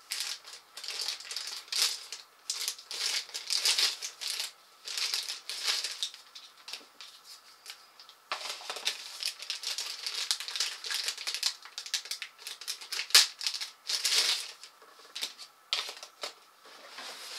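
Clear plastic bag crinkling and rustling in the hands in irregular bursts as plastic drone propellers are taken out of it, with light handling of the propellers and cardboard packaging.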